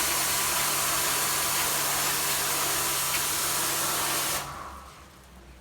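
High-pressure washer spraying water through the air conditioner, a steady hiss over the low, even hum of its pump motor; both cut off about four seconds in.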